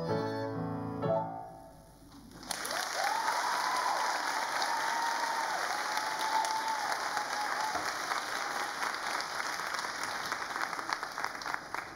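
The last notes of a small ensemble piece for violins and piano die away, and after a short pause an audience breaks into steady clapping. A long high cheer rises and holds over the applause for several seconds.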